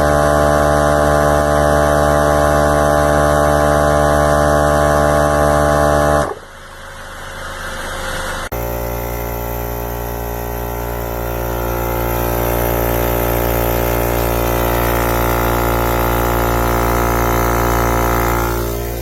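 VIAIR 88P portable 12 V tire inflator compressor running with a steady, loud buzzing hum. It stops about six seconds in, then comes back abruptly about two seconds later, slowly growing louder before fading away near the end.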